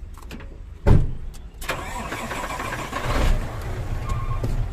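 Dump truck's diesel engine running with a low rumble, with a heavy thump about a second in and a rush of noise lasting about a second and a half; the engine gets louder about three seconds in.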